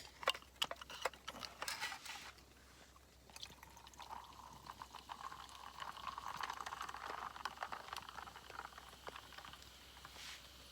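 Canned carbonated sour poured out of the can, a faint steady pouring that runs for about six seconds from a third of the way in, after a few light clicks of the can being handled.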